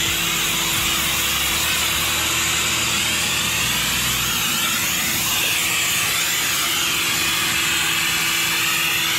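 Pressure washer running with a foam cannon, spraying snow foam onto a car: a steady motor hum under the hiss of the spray, with no break.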